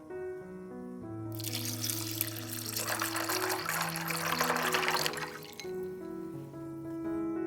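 Background music with a steady melody. Over it, from about a second in until near the end, there are about four seconds of running kitchen water.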